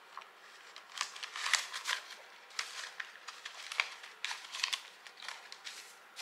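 Paper banknotes and cash envelopes being handled: irregular crisp rustles and crinkles as bills are shuffled through and slid in and out of envelopes.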